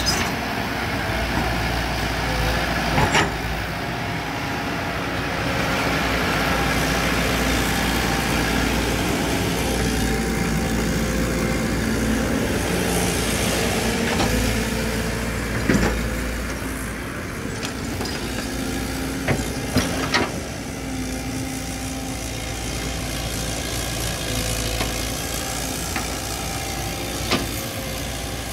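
Caterpillar tracked excavator's diesel engine running steadily under hydraulic load as it digs dry soil and dumps it into a dump truck's steel bed, with a few sharp knocks from the bucket and falling earth.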